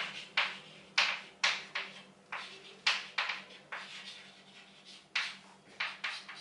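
Chalk writing on a blackboard: an irregular run of sharp chalk taps and short strokes as letters are written, fainter for about a second past the middle.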